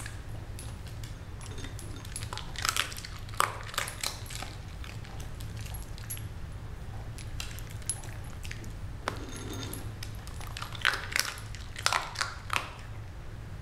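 Small dog eating from a ceramic bowl: sharp crunching and clinking of its food in two bouts, one about two and a half seconds in and one near the end, over a steady low hum.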